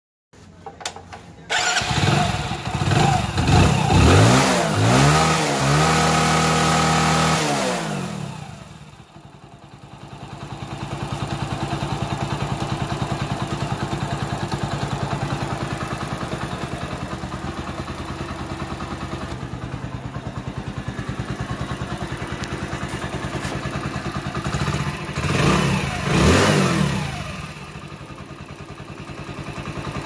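Hero Splendor motorcycle's single-cylinder four-stroke engine started, revved up and down several times, then settling to a steady idle, with another short rev near the end. Its timing chain has just been replaced, and the mechanic judges the engine sound now completely fine.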